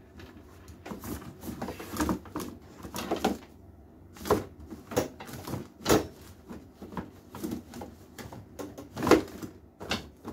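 Irregular knocks and clatter of bottles and small plastic items being moved about and set down on a wooden shelf top, a long string of sharp taps with two louder knocks, one near the middle and one about a second before the end.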